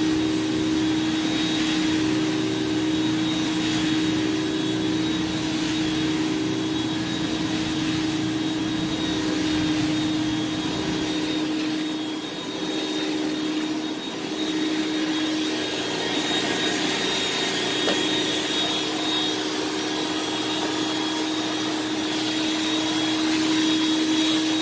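Carpet-cleaning extraction wand, set at 300 PSI, spraying and vacuuming water back out of the carpet as it is worked across: a steady rushing suction with a constant hum. The suction eases briefly twice around the middle.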